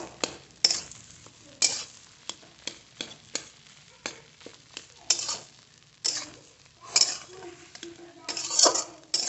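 Spatula stirring and scraping a potato masala filling around a frying pan: irregular scrapes and taps against the pan, several a second and loudest near the end, over a light sizzle of frying.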